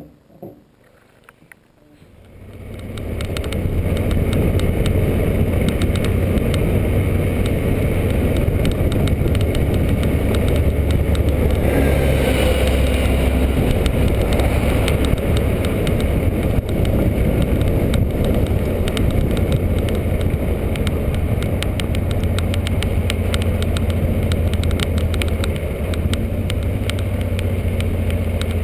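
A single click, then motorcycle engine and wind noise rise over a couple of seconds and run steadily at riding speed.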